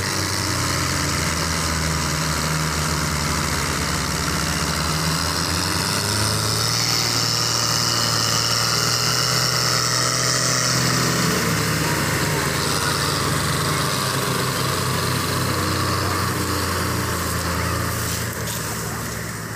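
Belarus tractor's diesel engine running hard under heavy load as it pulls a loaded sugarcane trolley: a steady, loud drone.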